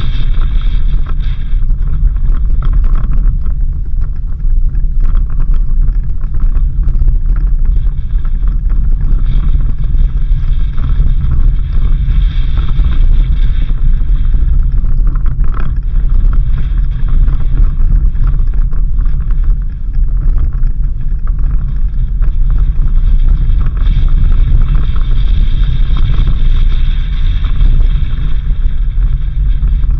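Suzuki Jimny 4x4 driving along a dirt road: a steady, loud low rumble of engine and tyres on the rough surface, with wind buffeting the microphone.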